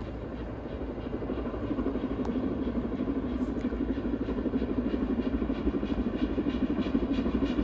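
Four-cylinder LMS Princess Coronation class steam locomotive 6233 Duchess of Sutherland approaching, its fast, even exhaust beats growing steadily louder.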